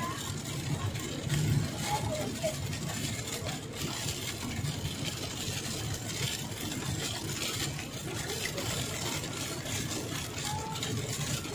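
Steady car-cabin noise while driving on a wet road in heavy rain: a low engine and road hum under an even hiss of tyre spray and rain on the windscreen.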